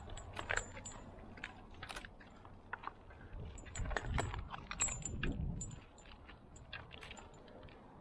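Climbing harness hardware (carabiners and metal clips) jingling and clicking irregularly as a tree climber moves down the trunk on his rope, with a few duller scuffs against the bark about four to five seconds in.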